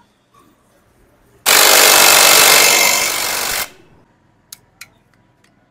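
Impact wrench hammering for about two seconds, running down the nut that holds the magneto flywheel rotor on the motorcycle engine's crankshaft. A couple of light clicks follow.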